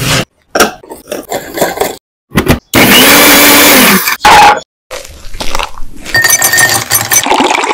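Food-preparation sounds in short cuts one after another. The loudest is a steady whirring noise lasting about a second and a half in the middle.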